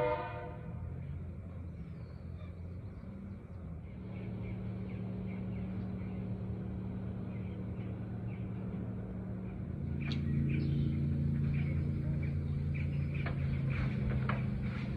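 A steady low engine hum that swells about four seconds in and again near ten seconds, with the tail of a horn blast at the very start. Over the last few seconds come scattered knocks and clicks from a magnet-fishing rope and gear being handled against a wooden railing.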